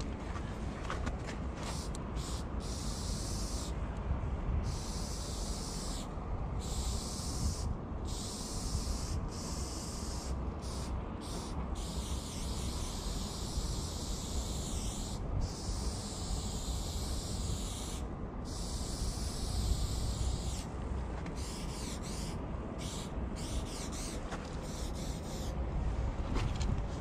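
Aerosol spray-paint can hissing as paint is sprayed onto a wall, in long bursts broken by short pauses, over a steady low rumble.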